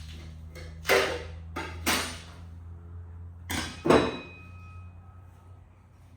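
Four hammer blows on metal, each ringing briefly. The last rings on with a clear tone. A steady low hum runs underneath.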